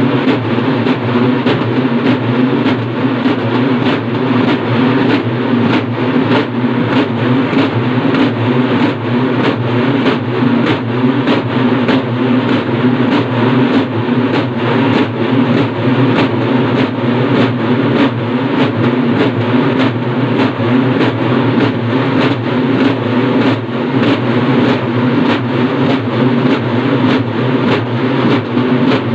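A large group of urumulu folk drums played together with sticks: a continuous drone under a steady, even beat of strokes.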